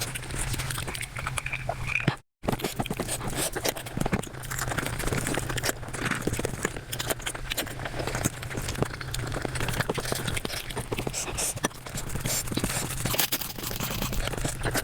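Eating sounds played back at five times speed: a dense, rapid run of chewing, smacking and crunching clicks over a steady low hum, broken by a split-second dropout about two seconds in.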